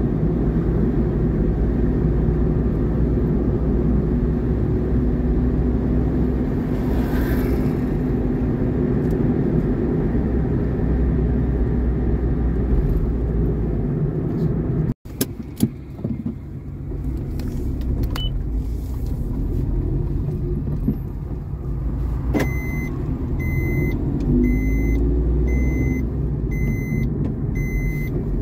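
Vehicle travelling on the road: a steady low engine and road rumble, with a brief dropout about halfway. From a few seconds before the end, an electronic beep repeats about once a second over the rumble.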